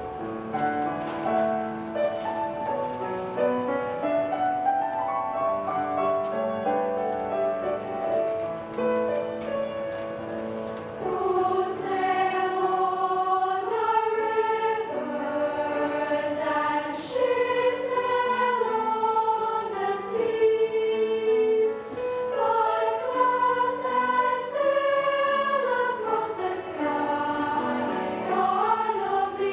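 A junior mixed choir singing a choral piece in several-part harmony, with held chords; the voices grow louder and brighter about eleven seconds in.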